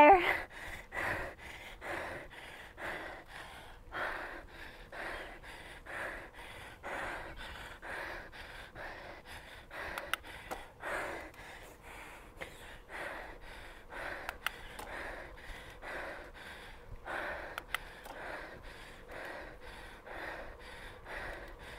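A cyclist breathing hard and rhythmically while pedalling, about two quick breaths a second, the sound of hard effort with the legs burning. A few faint sharp clicks come in now and then.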